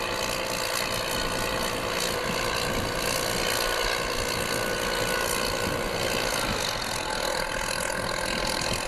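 Case tractor's diesel engine running steadily under load while ploughing.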